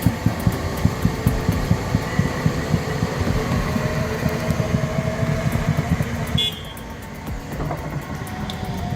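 Heavy diesel excavator engines running hard with a low, pulsing rumble, a faint hydraulic whine rising over it midway, as a stuck Caterpillar excavator is pulled out of the mud.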